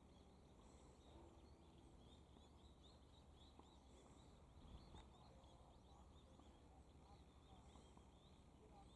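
Faint outdoor ambience: a steady low distant rumble with many small high chirps repeating throughout, and a single light click about five seconds in.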